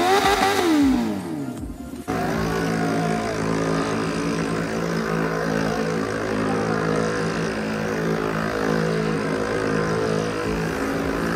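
A motorcycle engine winds down in pitch over about a second and a half. After an abrupt change about two seconds in, a steady engine drone mixed with music continues.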